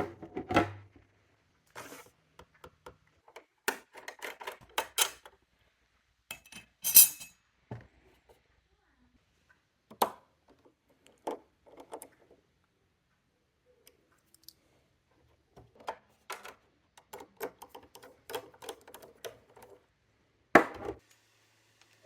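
Irregular clicks, taps and scrapes of small plastic and metal parts being handled while fitting an SSD into a PS5, with a sharp snap about seven seconds in and a louder knock near the end.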